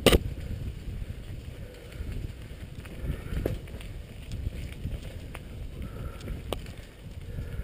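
Mountain bike rolling down a leaf-covered dirt track, heard from a camera on the handlebars: a steady low rumble of tyres and wind on the microphone, with a few sharp knocks as the bike jolts, the loudest right at the start.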